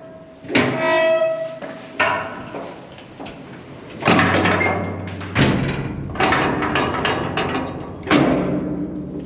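Background music: a series of struck percussive hits, each followed by sustained pitched notes that fade.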